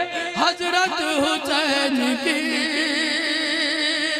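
A man singing a naat verse in classical style, drawing it out into a long melisma of gliding notes. It settles into a long held note with a strong, even vibrato in the second half, sung into a microphone.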